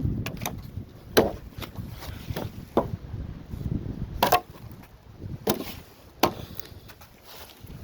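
A wooden stick knocking excess twigs and bits off a bundle of branches: a series of irregularly spaced, sharp wooden knocks and snaps, the loudest about four seconds in, with a softer low rustle between them.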